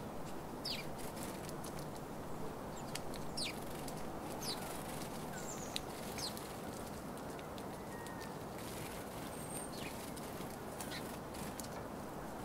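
House sparrows chirping at a seed feeder: short, quick calls scattered through, thickest in the first half, with wing flutters as birds fly on and off. A steady low background hum lies underneath.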